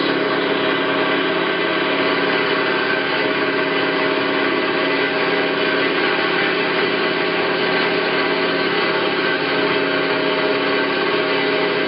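Hyd-Mech V-18 vertical bandsaw running, a steady machine hum with several held tones and no change in speed.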